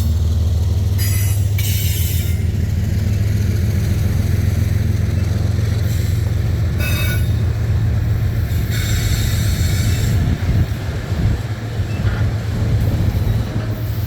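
Freight train cars rolling past with a steady, heavy low rumble, broken by several short bursts of high-pitched wheel squeal.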